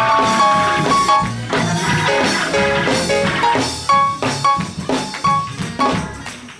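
Instrumental band music: short melodic notes over a drum kit beat.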